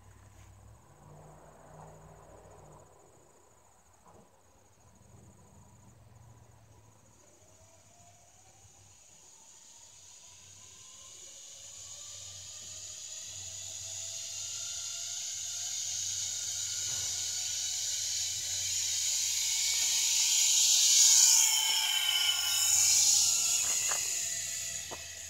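Zip line trolley rolling along the steel cable with a rider: a whirring hiss that builds for over ten seconds as it approaches, is loudest as it passes close by a little after twenty seconds in, then fades.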